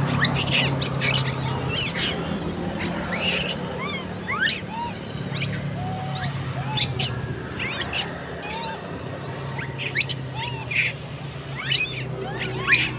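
A troop of long-tailed macaques calling: many short, sharp high squeaks and chirps scattered throughout, with a few softer arched coos rising and falling in pitch in the middle. A steady low hum runs underneath.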